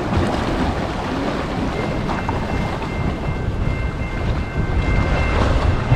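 Wind buffeting the microphone over a steady low rumble of passing boat traffic on the water. About two seconds in, a thin steady high whine at several pitches comes in and holds.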